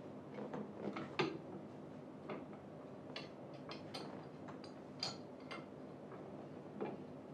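Irregular light clicks and taps of screws and a hand tool on the chair frame, with the screws being put in and turned to fix the footrest to the seat. The loudest is a sharp knock about a second in.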